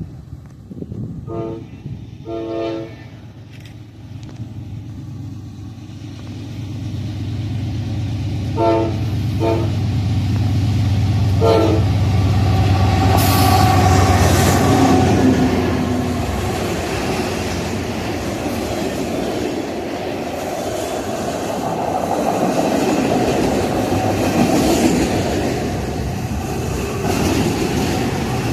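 Train horn giving five short blasts (two, then two more, then one) as a train approaches, then the train passing with a loud, steady rumble and clatter of wheels and cars.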